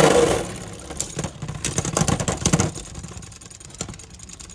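Beyblade X spinning tops whirring and clashing in a plastic stadium: a loud hit at the start, a rapid run of clattering impacts from about one second in, then quieter spinning with a few clicks.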